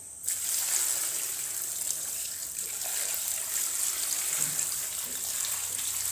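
Water poured from a plastic basin onto sliced bamboo shoots in a plastic bowl: a steady splashing pour that starts suddenly a moment in and keeps going.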